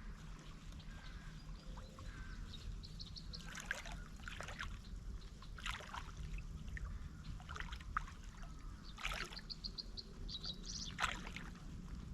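Birds calling in short rapid trills over a low steady rumble of wind, with a handful of brief water splashes and drips.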